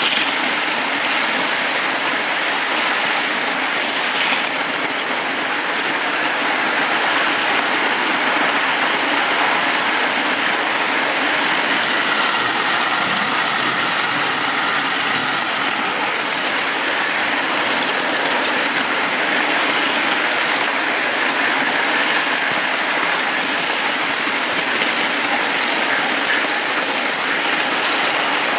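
Marx 1666 tinplate O gauge toy train running along tinplate track, heard from a car coupled right behind the tender: a steady, even rattle of wheels on the rails together with the locomotive's motor.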